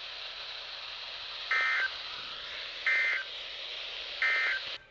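Three short bursts of Emergency Alert System digital data tones, about 1.3 seconds apart, over the hiss of a weather radio receiver: the end-of-message code closing a National Weather Service warning. The hiss cuts off suddenly near the end.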